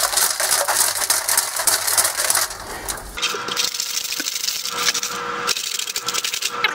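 A handful of quarter-inch steel nuts rattling and clinking inside a capped steel motorcycle-ATV fuel tank as it is shaken by hand, a dense continuous metallic rattle. The nuts are being tumbled with degreaser to knock loose the scaly rust inside the tank.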